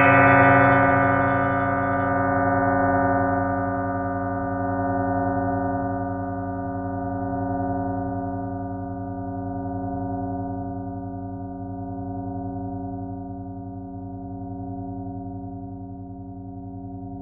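A bell struck once at the very start, then ringing on with many steady tones in a long slow decay; the high overtones die away within the first couple of seconds, and the ring wavers, swelling and ebbing every two to three seconds as it fades.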